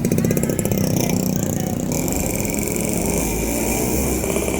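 A motor vehicle's engine running close by, with a rapid even pulse that is strongest in the first second, and a steady high hiss joining about two seconds in.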